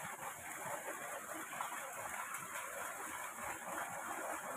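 Water flowing through a small ditch: a steady, quiet rush of running water.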